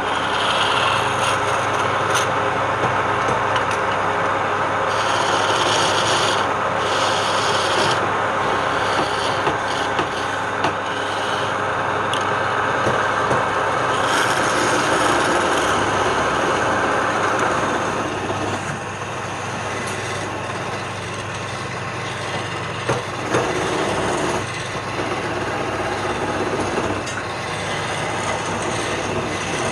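Electric power tool working wood: a steady motor hum under a dense rasping of wood that lightens about eighteen seconds in.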